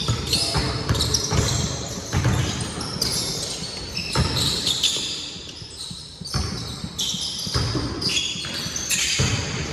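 A basketball game: a ball bouncing on the court again and again, with short high squeaks of sneakers on the floor.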